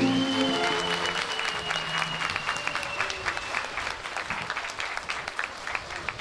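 Hall audience applauding at the end of a folk song, as the band's final notes fade away in the first second. A high held tone, falling slightly, sounds over the clapping for about the first three seconds.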